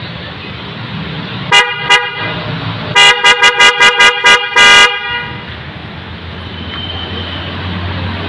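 Newly installed car horn being tested: two short honks, then a quick run of about six short toots and one longer honk.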